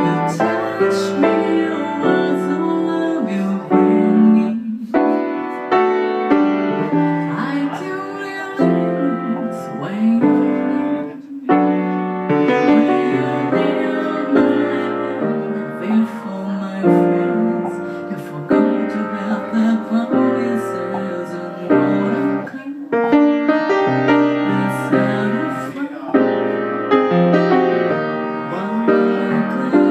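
Piano playing a slow passage of sustained chords and melody, without singing.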